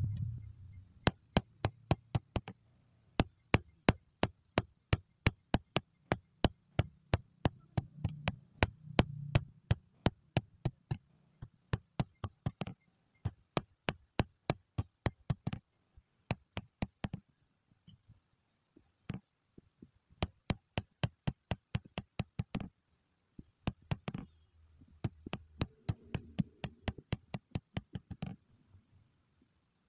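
Hand hammer striking a red-hot steel knife blank on an anvil, forging the blade: sharp metallic blows about three to four a second, in runs with short pauses between them.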